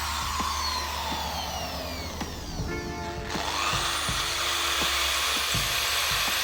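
Small electric drill running, its whine falling in pitch as it slows, then rising again a little over three seconds in as it speeds back up.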